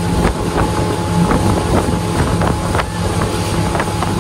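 An engine running with a steady hum, with wind on the microphone and scattered short knocks.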